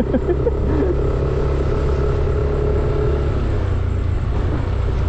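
Motorcycle engine running at a steady cruise while riding, with a constant drone and road rumble.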